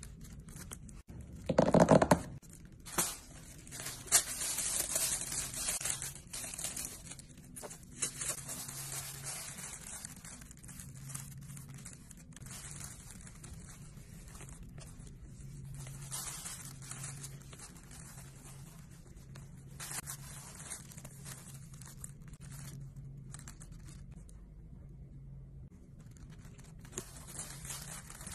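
Rustling handling noise as gloved hands move and open a quilted leather chain bag on a crumpled white backdrop. There is a loud rustle about two seconds in, and softer rustles follow.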